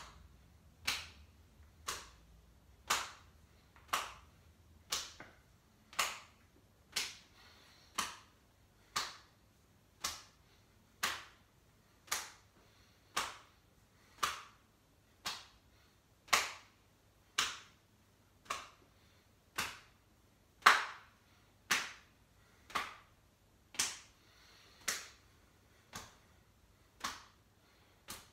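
Hands slapping against the body about once a second as the arms swing around in a standing torso twist, a steady series of sharp smacks.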